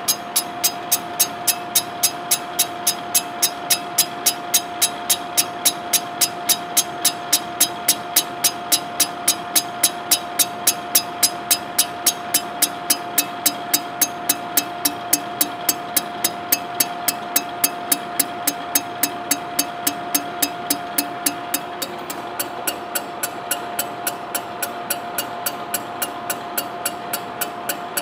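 Single-insert fly cutter on a horizontal boring mill facing a cast-iron table. The insert strikes the iron in an even ticking, about two and a half times a second, over a steady machine whine.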